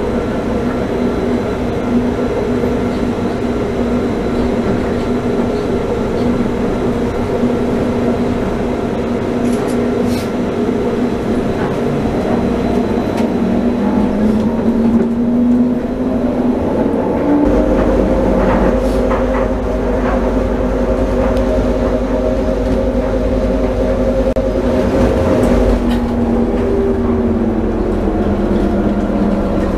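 Rubber-tyred Taipei Metro Wenhu line train running along its elevated concrete guideway: a steady hum of tyres and traction motors with a whine on top. The whine rises in pitch about halfway through, a deeper rumble joins soon after, and the whine drops in pitch near the end.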